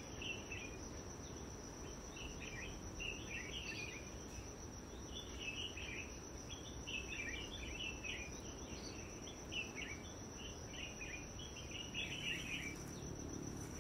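Outdoor bush ambience: small birds giving many short chirps over a steady, fast-pulsing high insect trill like a cricket's, with a faint low rumble underneath.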